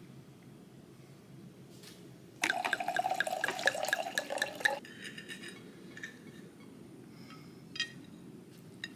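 Red wine poured from a bottle into a stemmed wine glass: a quick, even run of glugs lasting about two seconds, starting a couple of seconds in. A couple of faint clicks follow near the end.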